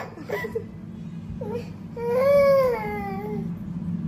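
Toddler crying: a few short sobs, then one longer wail about two seconds in that falls in pitch. A steady low hum runs underneath.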